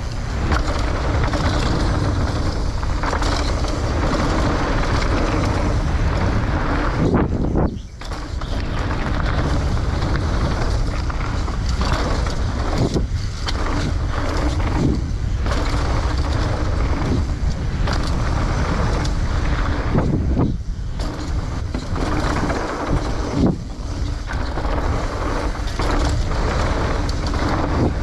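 Mountain bike descending a rough trail, heard from an action camera riding with it: continuous wind rush on the microphone mixed with tyre roar and the rattle of the bike over the ground. The noise briefly drops about eight seconds in and again about twenty seconds in, with sharp knocks scattered throughout.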